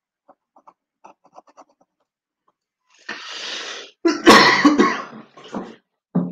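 A man coughing: a rasping breath about three seconds in, then one loud cough about four seconds in and two shorter coughs after it. Faint clicks come before it in the first second or two.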